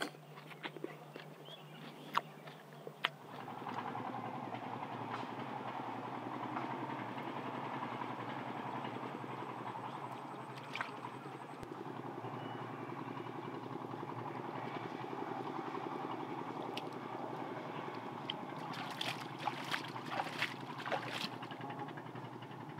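Hands scooping and slapping wet riverbank mud, with a cluster of wet slaps and splashes near the end as muddy water is scooped out. A steady background noise, like a distant motor, starts about three seconds in.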